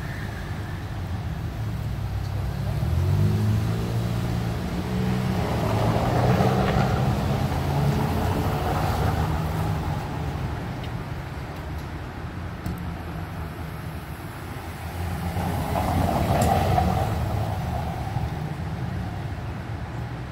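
Industrial robot arm's motors whirring as it moves, with a low hum that shifts pitch in steps and two louder swells as the arm travels.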